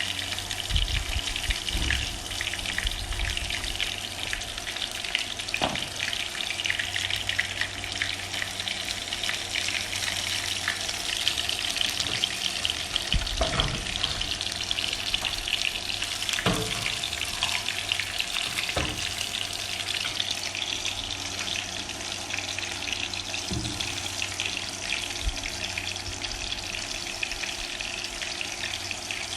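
Breaded shrimp deep-frying in hot oil, crackling steadily while still short of golden, with a few short knocks of a utensil now and then.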